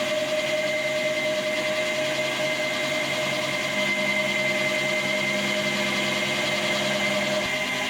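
A motor-driven workshop machine running steadily with a constant whine; the lower tone shifts slightly near the end.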